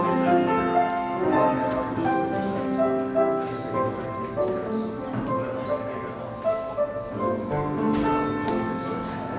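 Instrumental music with many held notes changing every second or so.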